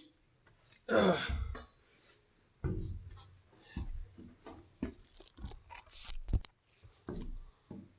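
A man grunts with effort about a second in, followed by irregular knocks, clicks and scrapes of hands and tools working in a cramped spot. There is no steady rattle of an impact gun running.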